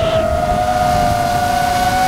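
DJI FPV drone's motors and propellers whining steadily in flight, the whine edging slightly up in pitch, with wind rumble underneath.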